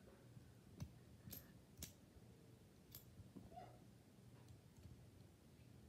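Near silence broken by a few faint clicks and taps, about four of them in the first three seconds, from a marker and a strip of metal staples being handled.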